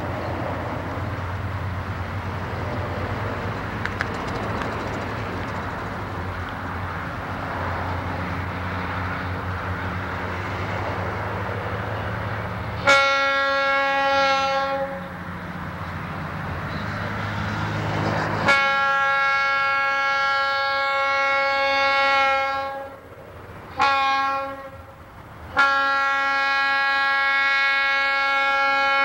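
Border Pacific diesel locomotive rumbling as it approaches, then its air horn sounding the grade-crossing signal: two long blasts, a short one and a final long one held on.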